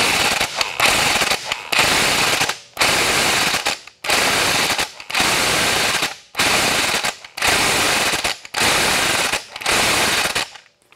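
Chicago Electric impact wrench hammering, in about nine bursts of roughly a second each with short pauses between, as it tightens the flywheel retaining bolt onto the crankshaft of an Aprilia RSV4 and seats the flywheel on its taper.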